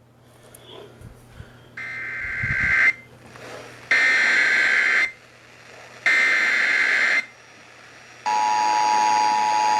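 Emergency Alert System broadcast header: three separate bursts of SAME data tones, about a second each, then about a second later the steady two-tone EAS attention signal, which marks the start of a new alert.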